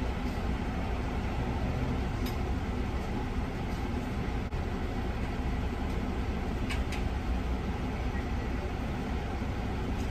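Steady low rumble of a car heard from inside the cabin as it idles and creeps forward in a drive-thru line, with a few faint clicks.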